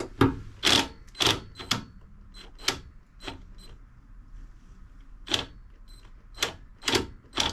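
Cordless drill run in about ten short bursts against a seat-mounting bolt, with a pause of a couple of seconds in the middle. The clutch is set to 10 and the bit is not loosening the bolt.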